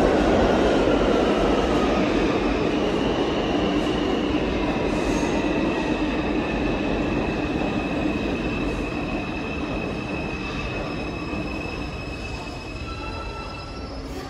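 New York City subway train rolling through the station with a rumble, its wheels squealing in a steady high whine from about three seconds in, the whole sound growing steadily fainter.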